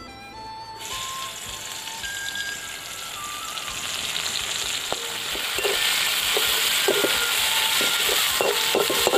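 Sliced onions and green chillies sizzling in hot oil in a wok. The sizzle starts suddenly about a second in as they go into the pan and grows louder. From about five seconds in, a metal spatula scrapes and knocks as it stirs them against the pan.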